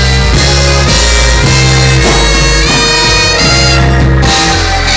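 A live band playing loudly: held bass notes that change about once a second under sustained melody notes.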